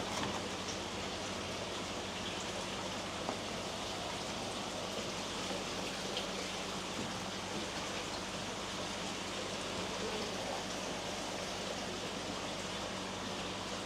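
Steady rush of running water, with a low steady hum beneath it.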